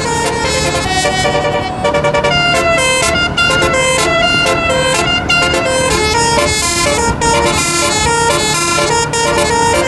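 Basuri telolet bus horn module playing a melody on its horns, loud, in quick stepped notes that change pitch every fraction of a second without a break.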